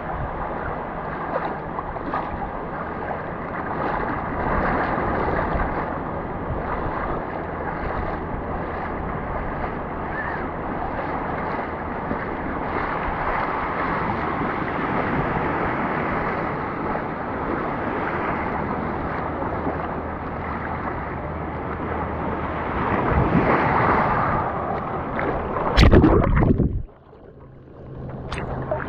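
Ocean surf washing around a wader, with wind on the microphone, a steady rushing noise. Near the end a brief louder rush, after which the sound drops off sharply for a second or two.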